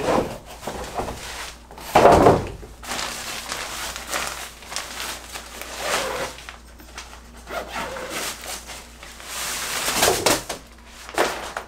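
Nylon carrying bag and folded pop-up green screen rustling and flapping as the screen is pulled out of its bag, in uneven bursts, with a loud thump and rustle about two seconds in.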